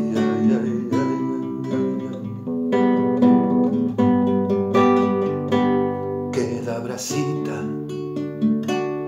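Nylon-string classical guitar played solo: strummed chords and picked notes, with two harder strums past the middle.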